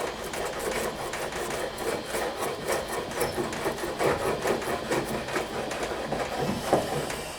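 A hand tool rubbing on wood in quick, even back-and-forth strokes, about three a second.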